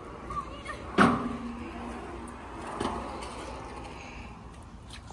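A sharp bang about a second in that rings briefly, then a lighter knock just before three seconds.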